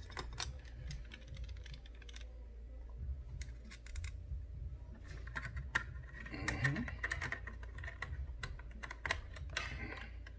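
Small, irregular clicks and taps of a precision screwdriver, tiny screws and the metal SSD mounting bracket being handled and fitted into an opened laptop, over a steady low hum.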